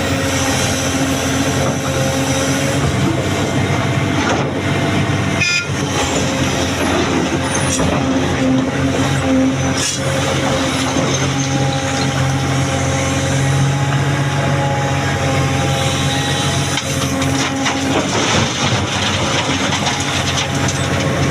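Heavy diesel machinery running steadily, an excavator working beside a dump truck, with a low engine drone and whining tones above it, plus a few faint knocks.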